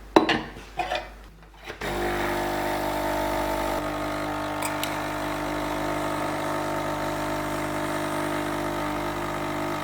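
De'Longhi Nescafé Dolce Gusto Melody 3 capsule coffee machine: two clicks near the start, then about two seconds in its pump starts and runs with a steady buzzing hum as it brews.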